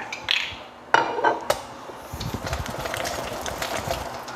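About a second in, a short ringing knock of glass on a hard countertop. Then a ball of bread dough is turned around inside an oiled glass bowl by hand, a steady rubbing with light rattling and scraping of the bowl.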